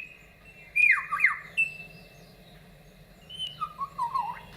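Superb lyrebird singing its mimicry song: short clear whistled notes with quick falling glides about a second in, and a run of lower descending notes near the end.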